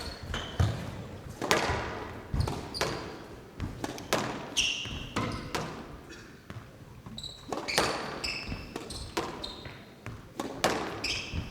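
Squash rally: the ball cracks off rackets and the walls in quick succession, roughly once or twice a second, while court shoes squeak sharply on the floor several times.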